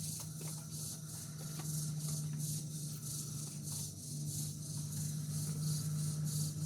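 Insect chorus with a high, pulsing buzz several times a second, over a steady low hum.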